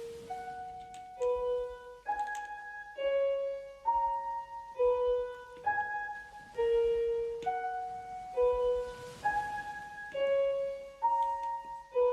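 Background music: a slow, simple melody of single piano-like notes, about one new note each second.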